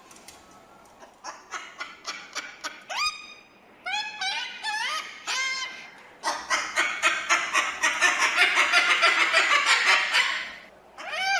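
Cockatoo calling: a few short rising squawks, then a long run of rapid, harsh, chattering calls, several a second, lasting about four seconds.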